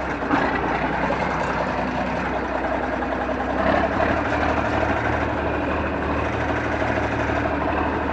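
John Deere 4630 tractor's turbocharged six-cylinder diesel engine running steadily while pulling a water wagon, its note shifting slightly about four seconds in.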